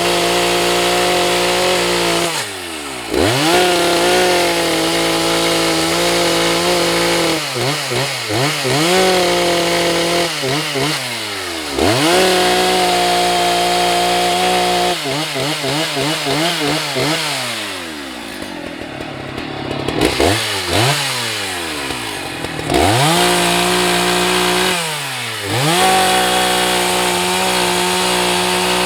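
Husqvarna 181 SE two-stroke chainsaw running at high revs. The throttle is released and opened again about eight times, so the pitch drops sharply and climbs back each time.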